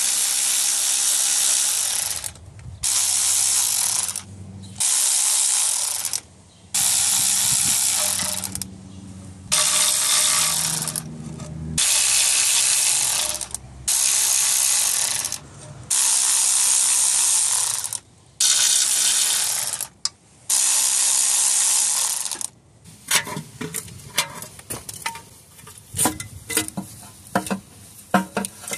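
Ratchet wrench spinning out 10 mm bolts in about ten separate runs of a second or two each. It is followed near the end by scattered light clicks and taps of metal parts being handled.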